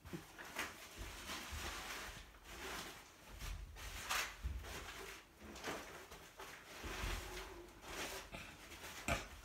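Irregular rustling and soft knocks of handling, with low thuds roughly every second, picked up on a handheld camera's microphone as it shifts about.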